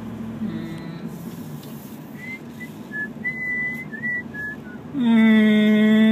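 A person whistling a few short notes of a tune over the low drone of the van's engine and road noise inside the cabin. About five seconds in, a loud held note is sung or hummed.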